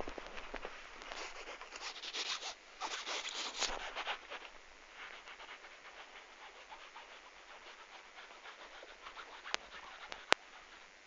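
Rustling and scratching noises for the first few seconds, fading to faint crackling, with two sharp clicks near the end.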